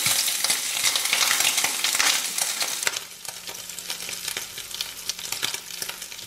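Thin bacon strips sizzling and crackling in a hot frying pan, with a plastic spatula scraping and pushing them around for the first three seconds or so. After that the sizzle goes on more quietly, a steady crackle with scattered pops.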